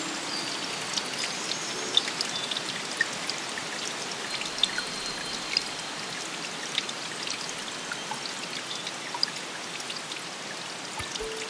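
Running water in a steady rush, with many small drips and drops scattered through it.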